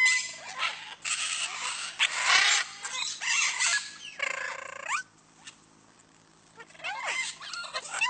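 Parakeets, an Indian ringneck and a quaker parrot, squawking in harsh, raspy screeches for about five seconds. After a short pause come a few quick whistled chirps that glide up and down near the end.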